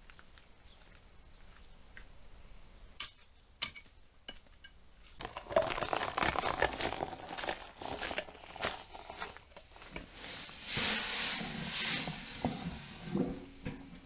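Bursts of rustling and scraping noise, with a few sharp knocks about three seconds in.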